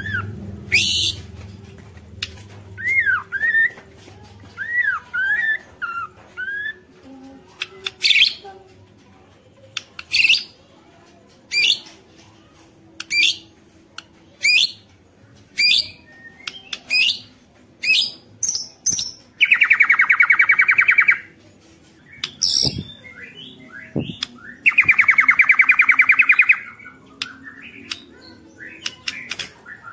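White-rumped shama singing: a few whistled gliding notes, then a run of short sharp calls spaced a second or so apart, and twice a harsh rapid rattle lasting about a second and a half, the shama's "ketrekan" rattling call.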